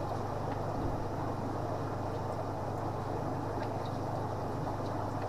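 Steady low electrical hum with an even hiss, the background drone of running shop equipment such as tank pumps and fans, with no distinct events.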